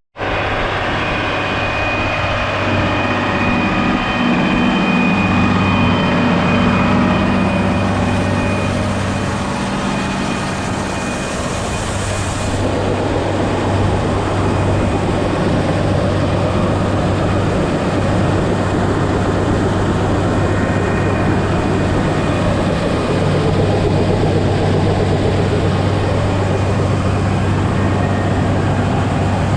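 John Deere 8820 combine running steadily while harvesting wheat: a constant engine hum under the noise of the machine, with a thin high whine over it.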